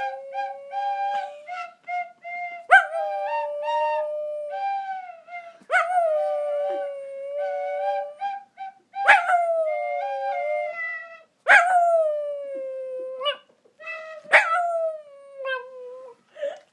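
A shih tzu howling along to a flute melody: about five long howls, each starting sharply and sliding down in pitch, over the flute's short stepped notes.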